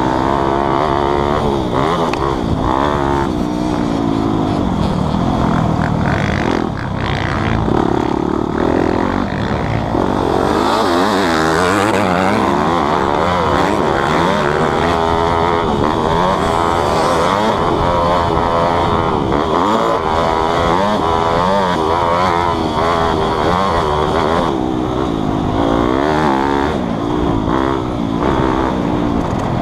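Motocross dirt bike engine, heard close up from a camera mounted on the bike, revving up and falling off again and again as it is ridden hard around a dirt track.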